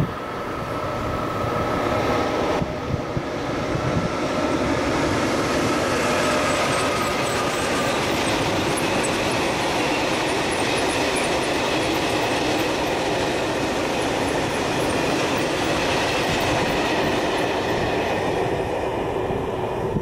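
Freight train passing: an Sr1 electric locomotive and a long string of covered freight wagons running by on the rails. The noise builds over the first couple of seconds, stays steady with a faint high-pitched wheel squeal flickering through the middle, and falls away near the end as the last wagon passes.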